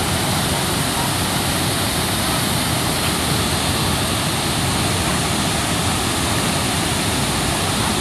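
Steady, loud rush of Chitrakote Falls, a very wide waterfall carrying heavy muddy flood water over a long rock ledge into a spray-filled plunge pool.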